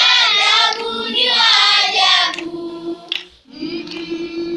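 A group of children singing together, the melody moving at first and then settling into long held notes, with a brief break between the last two.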